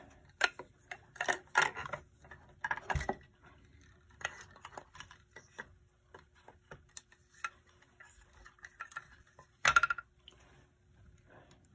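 Handling noise as an electric clock's metal movement is lifted out of its wooden case and set down: scattered clicks, scrapes and knocks of metal and wood, with a sharp knock about three seconds in and the loudest one near the end.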